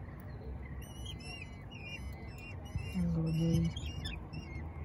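Common kestrel chicks giving thin, high-pitched whistling begging calls at feeding time, many short calls in quick succession from about a second in. A short, low, voice-like hum about three seconds in.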